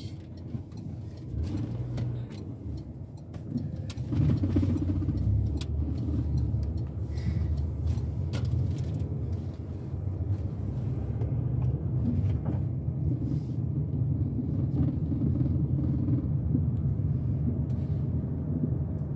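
A car's engine and road rumble heard from inside the cabin while driving. It is a steady low rumble that gets louder about four seconds in.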